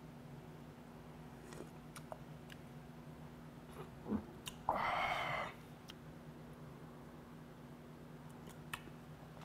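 A person slurping hot skate kimchi stew off a metal spoon: one loud slurp just under a second long about five seconds in, with a few faint spoon and mouth clicks before it, over a low steady room hum.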